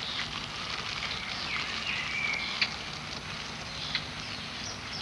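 Rainforest ambience: a steady crackling, pattering rustle, with a bird calling twice near the middle, each call a quick downward slide into a held whistle, and a couple of sharp clicks.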